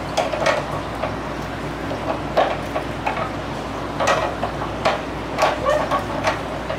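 Screwdriver scraping and clicking against the metal of a gas stove as the seized burner valve is pried and worked loose: irregular sharp clicks and scrapes.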